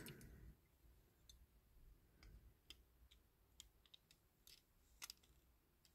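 Near silence with scattered faint clicks of a diecast toy car's baseplate being handled and fitted into its body, a close pair of clicks about five seconds in.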